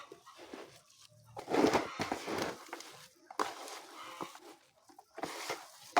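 Chickens clucking, with a louder rustling noise about a second and a half in.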